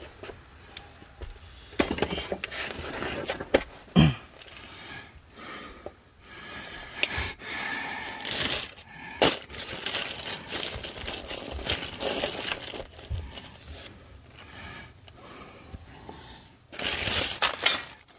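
Irregular metallic clinks and knocks, with a few short bursts of hiss lasting a second or two.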